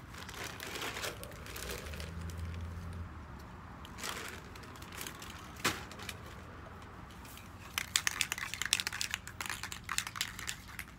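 Crinkling and rustling handling noise, then about eight seconds in a quick run of rattling clicks from a Rust-Oleum metallic gold spray paint can being shaken, its mixing ball knocking inside.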